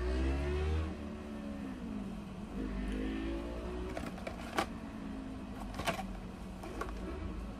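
A man's low wordless hum for the first few seconds, then a handful of sharp clicks and taps as a cardboard Pocky box is handled and its end flap opened.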